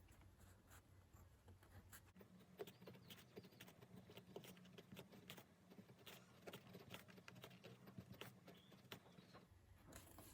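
Faint run of quick light scratches and taps from a pen writing on paper, starting about two seconds in and stopping shortly before the end, over a low steady hum.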